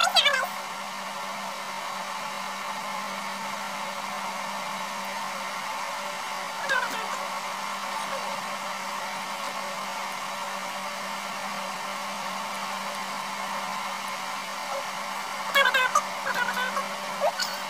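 Steady machine hiss with a low hum, like a small motor running. Short bursts of voices come at the start, about seven seconds in, and again near the end.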